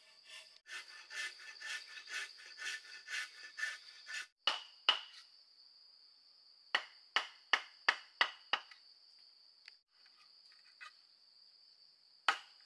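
Hand sawing strokes on wood, about two a second, stop after about four seconds. A series of sharp tool strikes follows: two, then six in quick succession, then a last one near the end. A steady high insect drone runs underneath.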